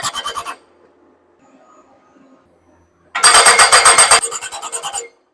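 Hydraulic post driver hammering a post in rapid repeated blows, about eight a second. It stops about half a second in and starts again near three seconds for almost two seconds.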